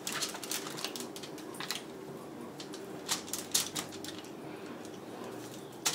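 A 12-inch Forschner slicing knife cutting smoked spare ribs apart on a foil-lined pan: scattered light clicks and scrapes, with a faint steady hum underneath.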